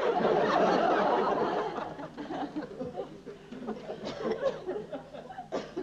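Theatre audience laughing, loudest in the first two seconds and then tapering off.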